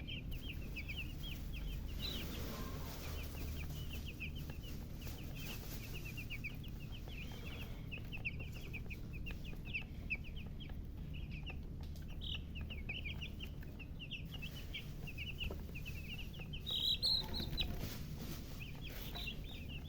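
Domestic chicks peeping continuously: many short, high peeps overlapping without a break, a few louder ones about three-quarters of the way through, over a low steady hum.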